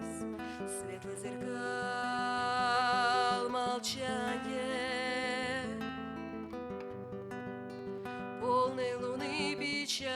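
A song performed to acoustic guitar, with a voice singing long held notes with vibrato over the strummed and plucked chords.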